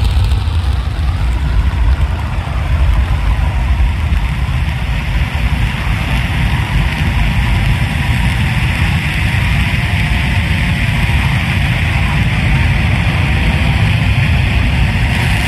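Twin-engine F/A-18 Hornet fighter jets running on the ground: a steady, loud jet roar with a deep rumble underneath and a hissing upper band, its tone slowly shifting.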